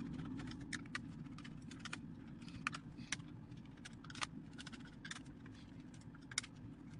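Faint, irregular clicks and ticks as a small screwdriver works the screws of a Nerf Zombie Strike Quadrot blaster's plastic shell and hands shift the blaster on a blanket.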